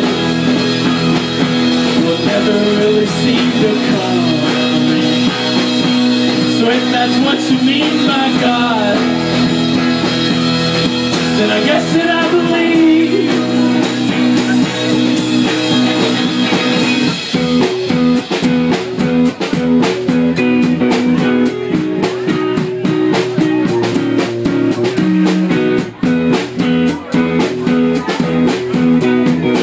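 Live rock band playing electric guitar, bass and drums, with bending guitar lead lines over the band; a bit over halfway through the music turns to a choppier, steady rhythm.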